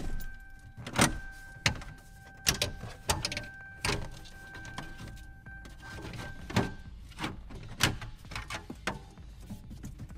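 Plastic trim clips snapping and popping loose as the upper dash panel of a 2003–2007 Chevy Silverado is pried off by hand, in a string of sharp cracks a second or so apart. A faint steady tone runs underneath for the first seven seconds or so.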